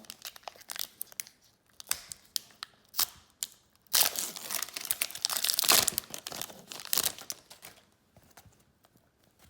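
Sealed pack of hockey trading cards being torn open by hand, the wrapper crinkling and ripping. There are scattered small clicks of handling at first, and the loudest crinkling and tearing comes about four to six seconds in.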